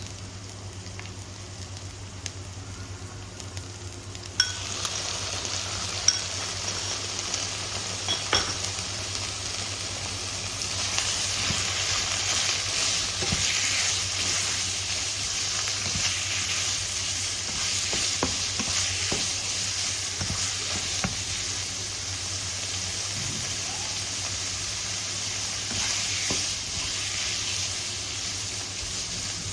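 Food sizzling as it fries in a hot pan and is stirred. The sizzle starts with a sharp clack about four seconds in and grows louder after about ten seconds. A few sharp knocks come in the first several seconds, and a steady low hum runs underneath.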